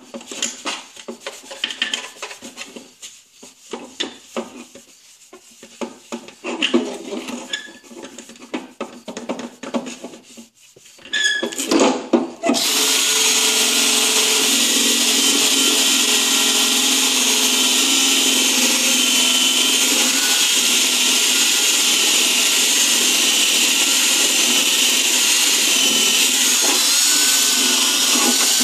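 Milwaukee drill fitted with a polishing pad, buffing a plastic tail-light lens. It starts about halfway through and runs at a steady speed with a wavering whine. Before that there is scattered rubbing and clicking as the lens and pad are handled.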